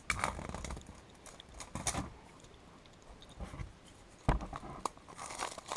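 Clear plastic shrink-wrap being pulled off a phone box by hand: several short crinkling rustles, with a sharp knock of the box against the table about four seconds in and a denser crinkle near the end.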